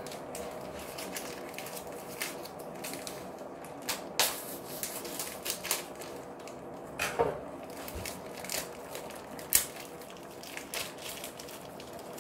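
Soup simmering in an electric skillet: irregular small pops and ticks of bubbling broth over a steady low hiss, with a few louder clicks.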